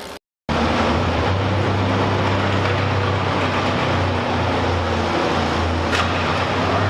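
Engine of a modified pulling tractor running loud and steady with a constant low drone, starting abruptly after a brief dropout half a second in.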